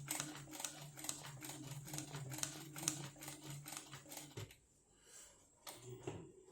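Sewing machine stitching free-motion embroidery: a steady motor hum with the needle clicking at about two stitches a second. The stitching stops with a thump a little over four seconds in, and the motor hum comes back near the end.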